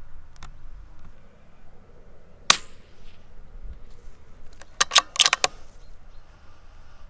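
A single .22 LR rifle shot cracks about two and a half seconds in, followed a couple of seconds later by a quick run of about six sharp metallic clicks, typical of the rifle's bolt being worked.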